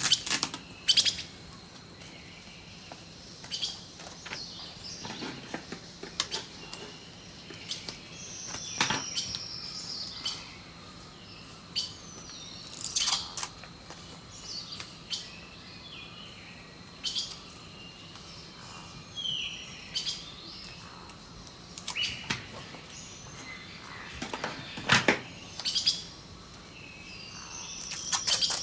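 Small birds chirping and twittering, with short sharp crackles and clicks every second or two from paper and clear sticky tape being handled.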